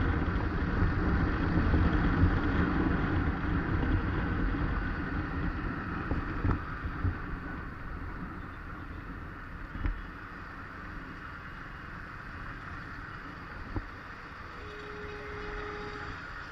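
Wind rushing over a helmet-mounted action camera's microphone, together with the motorcycle's engine and road noise while riding. The noise is loudest in the first few seconds and eases off as the bike slows behind traffic.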